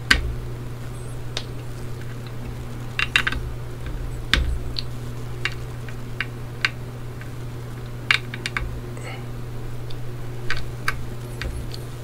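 Irregular small, sharp clicks of a hand driver working the platter clamp screws on an open Seagate Barracuda 7200.11 hard drive, each screw given a slight pinch to crack it loose.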